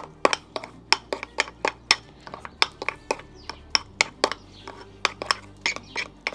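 A metal spoon clinking rapidly against the side of a small bowl as crème fraîche is stirred and mixed with wasabi, about three to four sharp clinks a second.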